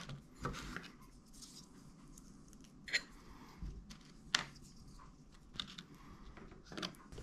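Quiet scrapes and a few sharp clicks of a table knife scooping pâté from a small bowl and spreading it onto a cracker on a wooden board.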